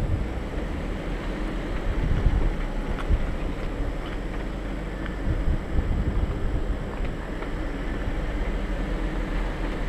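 Off-road 4x4 driving slowly over a rocky dirt trail: a steady low engine and drivetrain rumble, with a few short knocks from stones under the tires.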